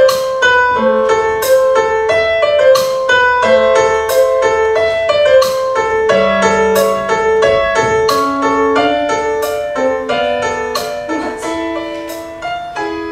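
Piano music: a slow melody of struck notes, with lower notes joining in over the second half and the volume easing slightly toward the end.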